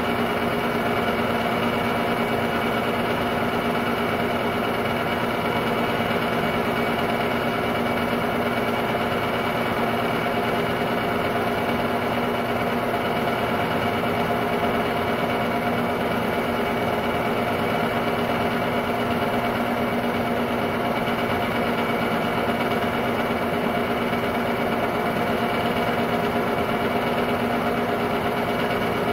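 Technicolor 810 8mm film-loop projector running: a steady mechanical whir of its motor and film transport, with a constant hum made of several steady tones.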